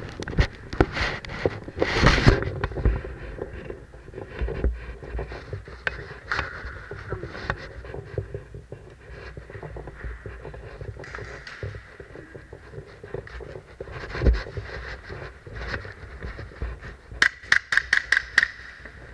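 Scattered footsteps, knocks and clicks as players move about, with a quick string of about eight sharp cracks near the end, the shots of an airsoft gun.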